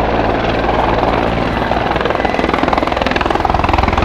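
Mil Mi-24V helicopter flying a display: its twin turboshaft engines run with a steady whine under the rapid, even beat of the main rotor. The beat grows stronger through the second half.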